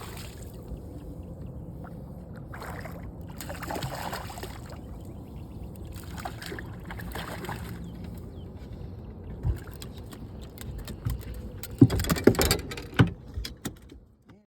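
Noises on a small fishing boat: a steady low rumble with several short bursts of splashing hiss, then a quick cluster of loud knocks and thumps about twelve seconds in. The sound cuts off abruptly just before the end.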